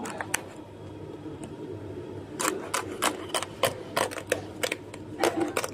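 Crisp roasted skin of a Balinese babi guling suckling pig crackling in sharp clicks as a knife is worked along its back. A few crackles come at the start, then a dense run of several a second from about halfway through.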